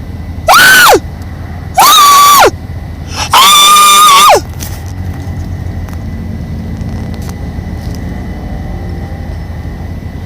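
An animal's loud, high-pitched calls, three in a row in the first half: each holds a steady pitch and then drops sharply at its end, the third the longest at about a second. A steady low hum lies under them.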